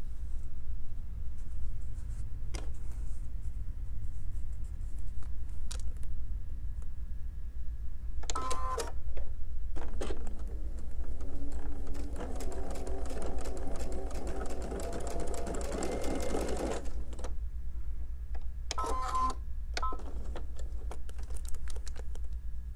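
Sewing machine stitching a seam in short runs: a brief burst about eight seconds in, a longer steady run of about seven seconds in the middle, and another brief burst near the end.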